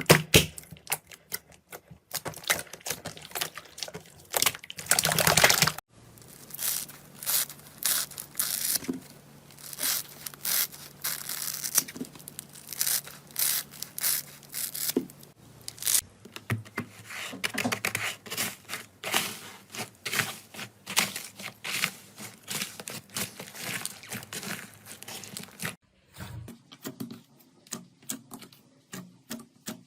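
Slime being pressed and stretched by hand, making dense crackling and popping, in several short clips with a cut about every ten seconds.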